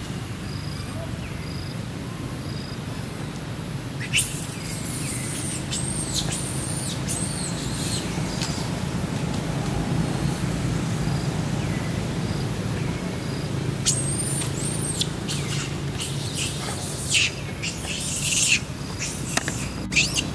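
High-pitched, squealing animal calls in bursts, starting about four seconds in and again around fourteen seconds, with a cluster of sharper, louder calls near the end, over a steady high whine and low background hum.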